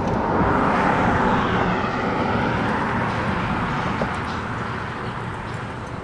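A motor vehicle driving past, its tyre and road noise loudest about a second in and then slowly fading away.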